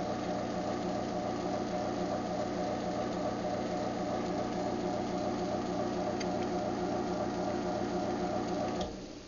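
Craftsman garage door opener motor running its travel cycle, opening on a press of its remote: a steady hum that stops abruptly about nine seconds in.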